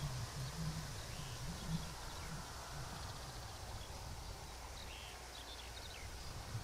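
Scattered faint bird chirps, a few short high calls, over a low outdoor rumble that eases after the first couple of seconds.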